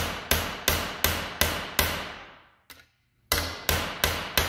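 Hammer blows on a steel rivet set over an anvil, about three a second: a run of five, a pause of about a second and a half, then four more, each ringing briefly. The blows are swaging a soft iron rivet, mashing it flat so it clamps two sheets of metal together.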